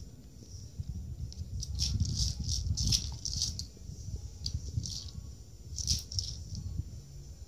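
Dry cat food rattling inside a Ca-Tumbler wobbler foraging toy as a cat noses and paws it over on carpet: a run of rattles from about two to three and a half seconds in, and another shorter run near six seconds.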